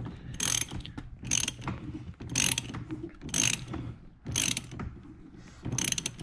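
Hand socket ratchet on a long extension clicking in short runs, about once a second, as it is swung back and forth to tighten a seat-bolt nut.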